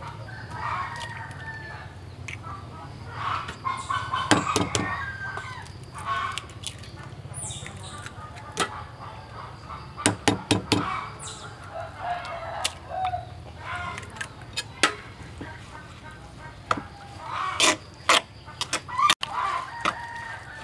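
Chickens clucking and a rooster crowing at intervals. Between the calls come sharp clicks of eggs being cracked against an earthenware mortar, and near the end a spoon scrapes and stirs the mixture in the bowl.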